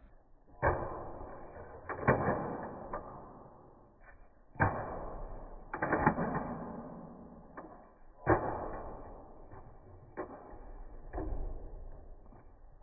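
A small plastic ball rolling and clattering through a long cardboard tube: a sharp knock, then a fading hollow rumble, about eight times over.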